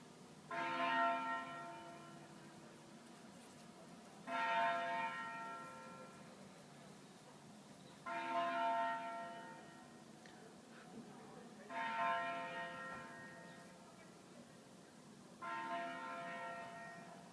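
Church bell tolling slowly: five strokes about four seconds apart, each ringing out and fading before the next.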